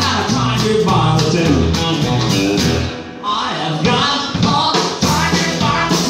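Live country band playing: electric guitar, acoustic guitar, electric bass and drums over a steady, walking bass rhythm.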